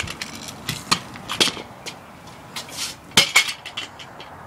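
Metal kick scooter clattering on concrete: several sharp metallic knocks and rattles, the loudest about three seconds in.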